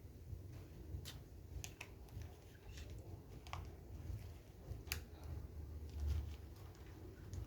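Faint, scattered short clicks and taps, about a dozen at uneven intervals, over a low steady rumble.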